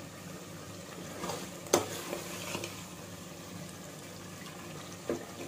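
Thick chicken korma masala sizzling and bubbling in a metal pot as it is fried and stirred with a ladle. One sharp clink of the ladle against the pot comes a little under two seconds in, with a few lighter knocks around it.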